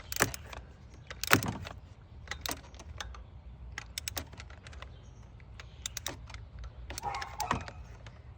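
A ratchet torque wrench set to 23 Nm is worked in short strokes to tighten a spark plug, giving a series of irregular sharp clicks and light metallic rattles.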